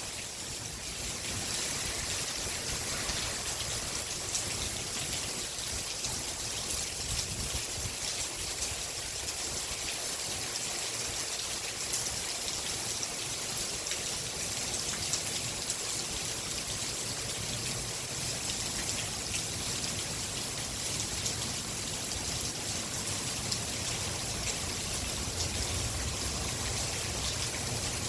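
Steady rain falling, an even hiss with the fine patter of drops.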